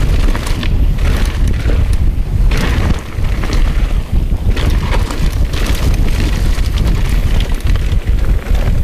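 Wind buffeting an action camera's microphone on a fast mountain-bike descent, a heavy steady rumble, with tyres crunching over loose dirt and short rattles and clatters from the bike over bumps.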